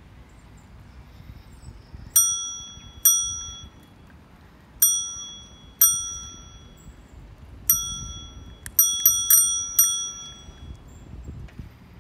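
Bicycle bell on an oBike share bike rung in three pairs of dings, then a quick run of about five rapid dings, each ding ringing out for about half a second over a low rumble of riding.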